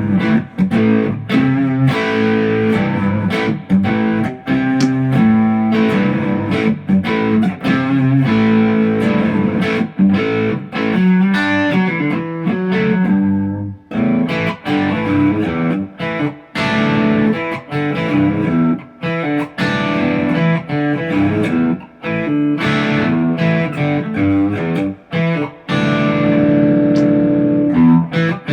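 ESP LTD EC-256 electric guitar played through an amp: riffs of short, clipped notes and chords with frequent brief stops, and a short break about fourteen seconds in.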